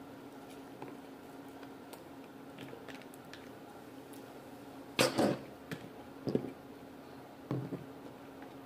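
Person eating sushi close to the microphone: soft chewing, then a few sharp mouth noises, the loudest about halfway through and two smaller ones after it, over a steady low hum.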